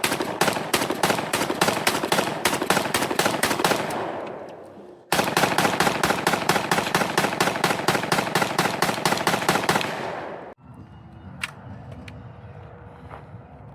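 Rapid strings of gunshots at about five shots a second. One string runs on and fades away about four seconds in; a second starts suddenly about a second later and stops sharply about ten seconds in, followed by a few faint knocks.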